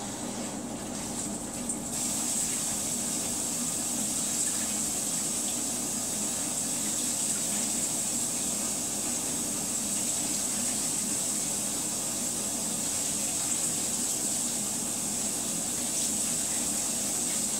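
Samsung WA56H9000AP top-load washer filling its tub with water for a rinse after the spin cycle: a steady rushing hiss of incoming water that grows a little stronger about two seconds in.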